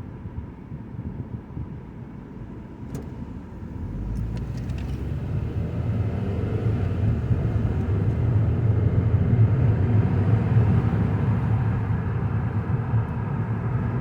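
Engine and road noise of a 2009 Mazda 5 heard from inside the cabin while driving: a steady low rumble that grows clearly louder from about four seconds in.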